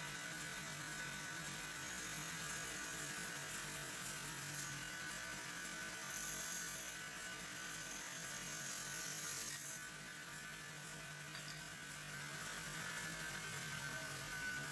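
Metal-spinning lathe running with a steady hum and buzz while a hand-held spinning tool is pressed against the turning silver workpiece. A higher hiss swells about six seconds in and falls away near the tenth second.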